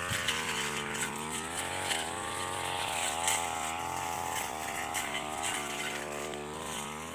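Brush cutter (grass-cutting machine) engine running while cutting grass, its pitch rising and falling in slow waves as the throttle and load change.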